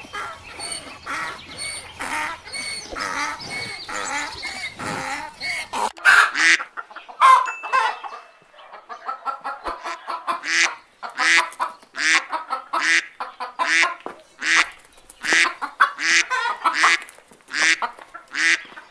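Farmyard ducks and chickens calling. For about the first six seconds there are softer mixed calls; then loud, harsh duck quacks repeat roughly once or twice a second to the end.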